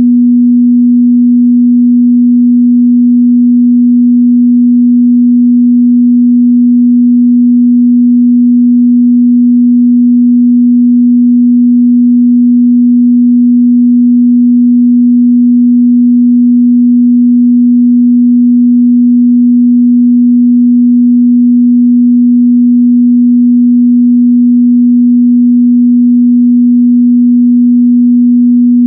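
A pure 243 Hz sine-wave test tone, held steady at one pitch and level, a low mid-bass hum.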